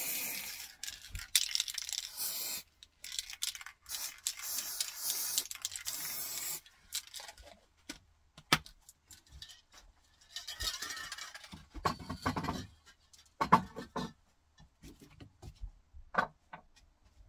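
Aerosol can of metallic copper spray paint hissing in three bursts over the first six seconds or so. After that come scattered clicks, knocks and rubbing from small objects being handled on a workbench.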